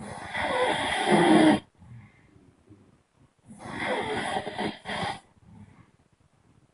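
A person snoring loudly: two snores, each about one and a half seconds long and about three and a half seconds apart, the second breaking off briefly near its end.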